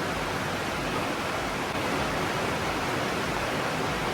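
Rain falling on a tin roof, a steady even hiss with no separate drops standing out.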